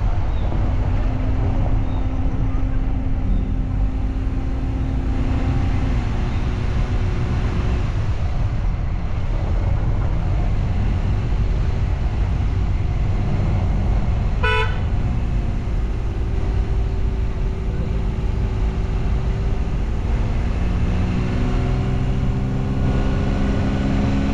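Motorcycle engine running under way with steady rumble and wind noise, its pitch shifting with speed. About halfway through, a vehicle horn gives one short toot.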